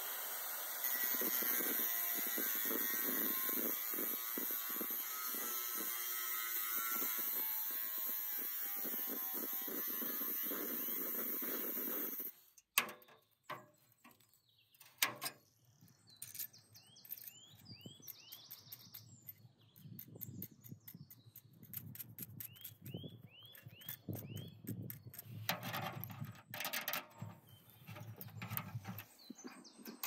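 An angle grinder with a cutting disc cuts through a washing machine's perforated stainless-steel drum: a loud, steady, high screech for about twelve seconds that cuts off suddenly. Then come scattered clinks and knocks as the cut metal is handled.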